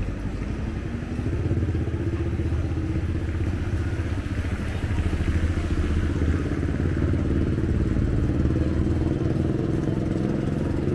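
A motor vehicle's engine running close by, steady and louder from about a second and a half in, over street traffic noise.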